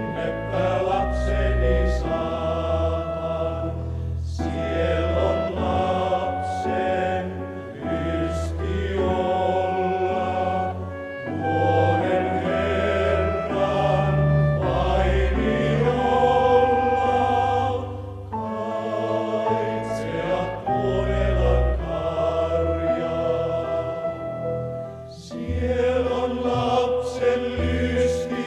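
A group of men's voices singing a song together in chorus, over steady low notes.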